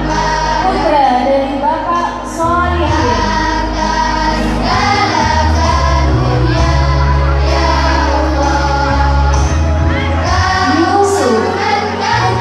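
A school choir of young singers singing a hymn in unison over an instrumental accompaniment, with held bass notes that change every second or two.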